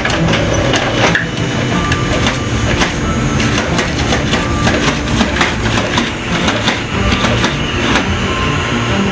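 Printer running with a dense, irregular mechanical clatter and clicking.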